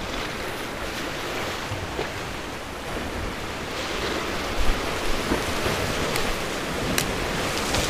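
Sea surf washing on the shore with wind buffeting the microphone, a steady rushing noise; a couple of sharp clicks near the end.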